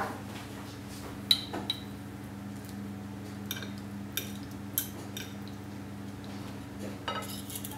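Knife and fork clinking and scraping on a plate while cutting into a fried egg and potato bread: scattered sharp clinks, the loudest a short ringing clink about a second in, and a quick run of clicks near the end. A steady low hum runs underneath.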